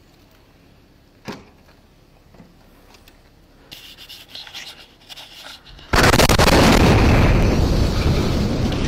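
A vehicle bomb in a parked RV detonating. After a few seconds of clothing rustling against the body camera, a sudden, very loud blast hits about six seconds in and goes on as a long roar that slowly dies away.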